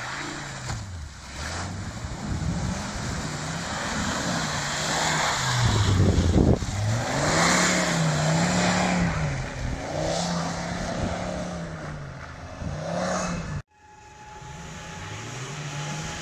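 Volvo XC70 D5's five-cylinder turbodiesel revving up and down again and again as the all-wheel-drive car pushes through mud and water, with the splash and hiss of tyres in the muck, loudest about halfway through. Near the end it cuts off suddenly and another engine comes in.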